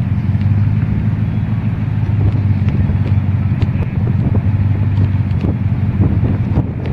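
A motor vehicle's engine running steadily with a low hum, with scattered light clicks and rattles.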